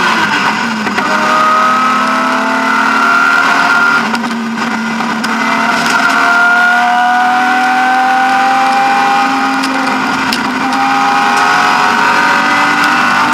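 BMW E36 M3's straight-six engine under hard acceleration, heard from inside the rally car's cabin. Its pitch climbs steadily, drops at a gear change about four seconds in, then climbs again, with a few light knocks from the car over the road.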